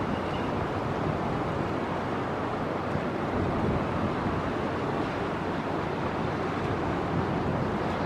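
Steady wind on the microphone over a low, even rumble of open harbour water, with no separate events.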